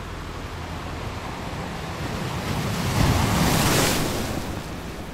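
Sea surf on a sandy beach: a wave builds, breaks at its loudest about three seconds in, then washes back out over a steady surf hiss.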